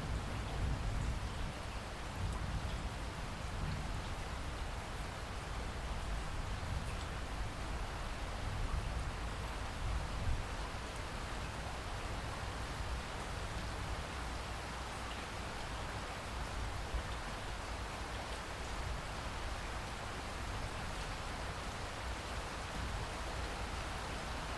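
Steady rain falling, with a deep low rumble beneath the patter.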